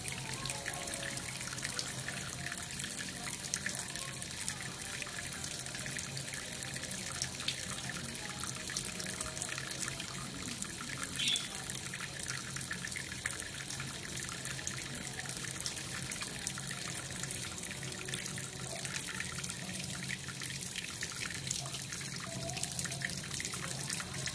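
Kitchen tap running into a stainless steel sink, the water splashing steadily onto a hand and a bathing budgerigar.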